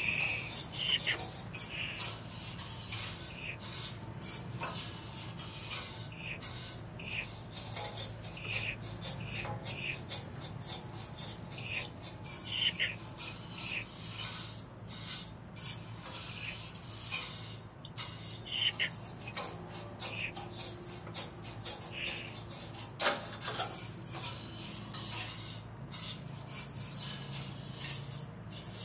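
Vibraphone played with extended technique: thin sticks scraped and tapped against its metal resonator tubes, giving a busy, irregular run of metallic scrapes, rattles and light clicks.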